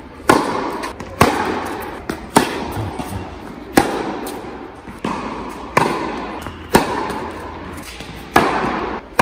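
Tennis ball struck hard with a racket, a string of sharp hits one to two seconds apart. Each hit rings on in the long echo of an indoor tennis hall.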